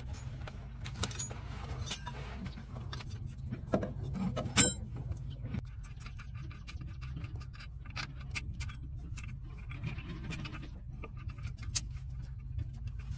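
Metal tools clicking and knocking against the underside of a truck, with a sharper metallic clank about four and a half seconds in, over a steady low hum.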